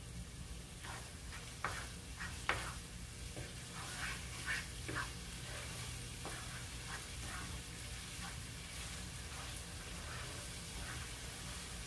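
Wooden spatula scraping and stirring a thick ginger-garlic and spice paste frying in oil in a non-stick pan, with a low sizzle: the masala being fried down. Quick scrapes come close together in the first half, then fewer.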